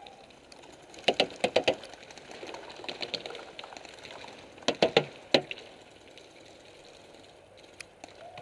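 Paintball marker firing in two quick bursts of sharp pops, about six shots a little after one second in and about five more near five seconds, with fainter shots scattered in between.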